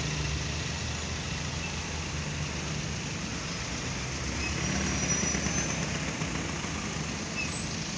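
Palermo tram being towed, rolling slowly past on its rails with a steady low hum and rumble, over street traffic noise. A faint brief high squeal comes about five seconds in.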